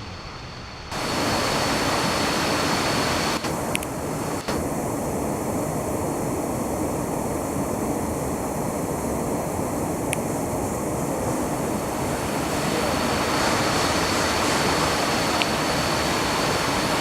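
Steady rush of a waterfall, jumping up sharply in loudness about a second in, with a thin steady high-pitched tone above it.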